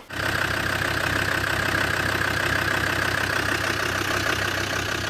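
Land Rover Defender Td5's five-cylinder turbodiesel engine running steadily, with an even low pulsing.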